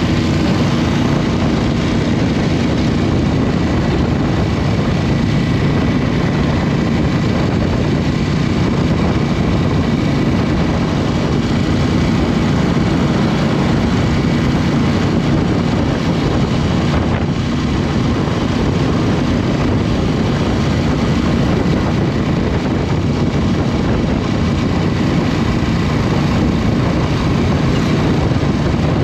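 Aprilia RS 660's 659 cc parallel-twin engine running steadily on the move, with no revving up or down, mixed with a steady rush of wind.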